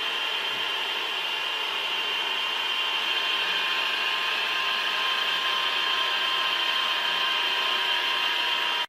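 A metalworking machine running steadily, giving a constant high whine made of several held tones over a hiss of machine noise.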